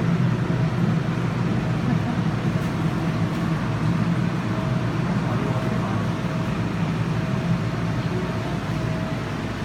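Steady low hum over an even rushing noise, with a faint higher tone that comes and goes.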